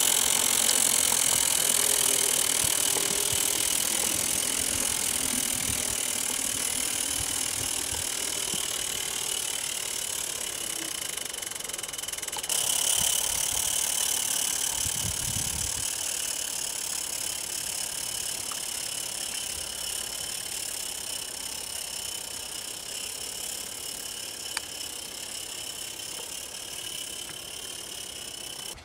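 Small live-steam model locomotive running on a garden railway: a steady hiss of steam with a few thin whistling tones, growing fainter as it moves away, with a brief rise in level about halfway through.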